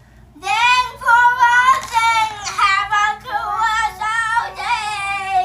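A child singing in a high voice, with long held notes that slide up and down in pitch.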